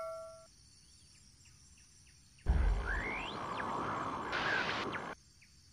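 A ringing notification chime fades away at the start. After a short quiet gap, outdoor ambience with a low rumble and a bird's rising chirps starts abruptly and cuts off suddenly after about three seconds.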